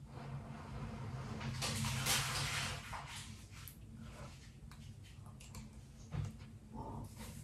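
A person blowing on a spoonful of hot stew to cool it: a soft breathy rush about two seconds in, with a few light clicks.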